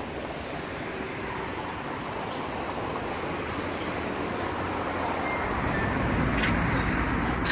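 Steady outdoor background rush with no clear single source, its low rumble growing a little louder over the last two seconds.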